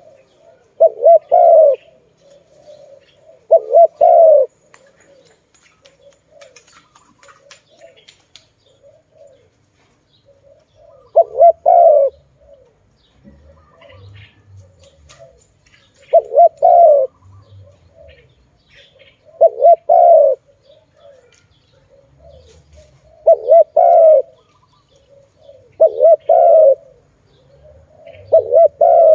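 Spotted dove (tekukur) cooing: a loud, low, rolling coo phrase repeats every few seconds, with fainter coos in between.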